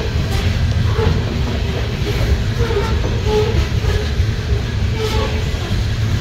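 Freight train of steel coal hopper cars rolling past at speed: a steady low rumble of wheels on rail, with a few short squeals from the running gear and light clicks over the rail joints.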